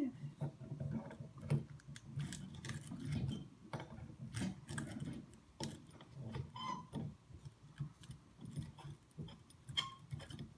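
Irregular light clicks and taps with soft low thuds, scattered unevenly.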